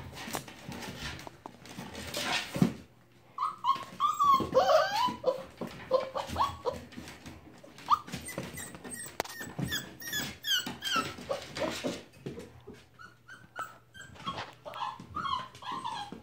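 A litter of puppies playing, with high whimpers and yips that come in bunches, mostly through the middle and again near the end, over the clicking and scrabbling of paws.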